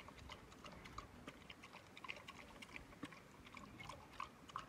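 A dog eating torn roti from a bowl: faint, irregular chewing with small crunching clicks.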